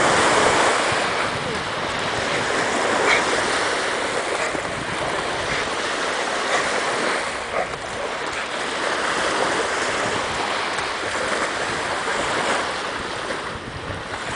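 Small waves washing and breaking onto a sandy lake shore, a steady surf that swells and eases, with a large dog splashing as it wades through the shallows.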